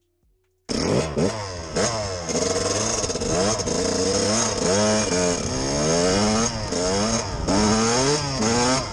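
Dirt bike engine revving under hard riding, its pitch climbing and dropping again and again. It cuts in suddenly about a second in.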